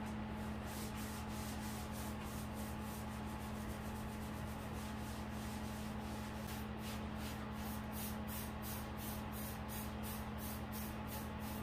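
A scrubber rubbing back and forth over a porcelain bathtub in quick, rasping strokes, about two to three a second, most distinct in the second half. A steady low hum runs underneath.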